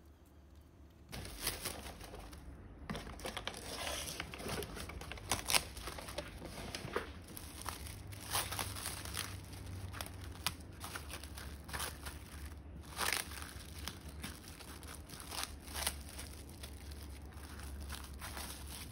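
Plastic cling film crinkling and crackling as it is stretched over a bowl and pressed down by hand onto custard. It starts about a second in, with sharp crackles throughout.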